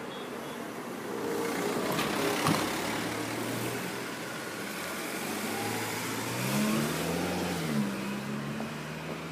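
A car driving along the street, its engine and tyre noise swelling in the first few seconds, then an engine note that rises and falls in pitch in the second half.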